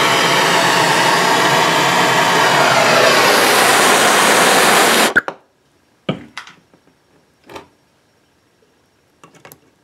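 Hydrogen-oxygen torch running with a loud, steady hiss as it heats a nickel ball red hot, then shut off suddenly about five seconds in. A few light knocks and clicks follow.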